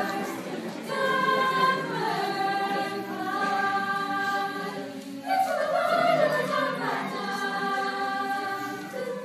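Mixed high school choir singing held chords in several voice parts. It breaks off briefly about half a second in and again about five seconds in, coming back louder after the second break.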